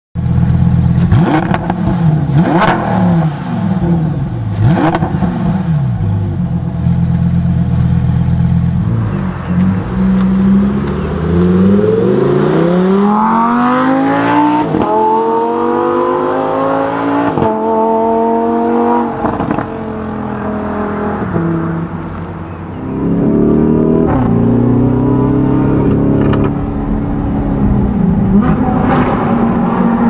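Lamborghini Huracán STO's naturally aspirated 5.2-litre V10 revving up and down, then accelerating hard, its pitch climbing through several quick upshifts. It eases off for a couple of seconds about two-thirds of the way in, then pulls hard again through two more upshifts.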